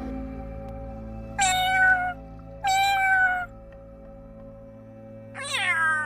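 Cat meowing three times: two even meows of under a second each, then a longer meow that falls in pitch near the end.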